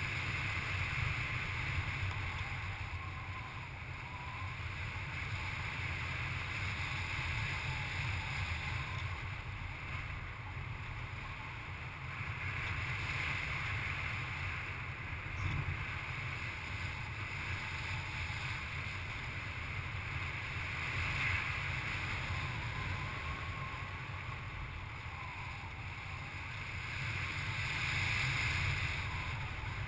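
Wind rushing over the microphone of a camera worn by a paraglider pilot in flight: a steady noisy rush with a low rumble, swelling and easing every few seconds.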